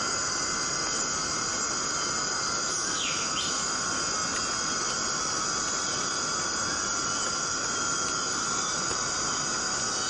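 Forest cicadas droning steadily, with one short chirp about three seconds in.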